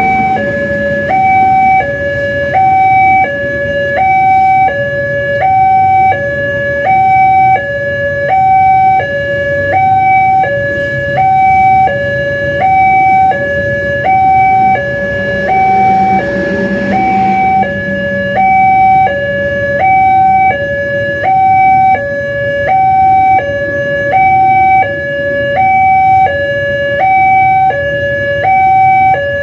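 Two-tone emergency-vehicle siren alternating steadily between a high and a low note, about two-thirds of a second each, over a low traffic rumble. Something, perhaps a passing vehicle, swells up about fifteen to eighteen seconds in.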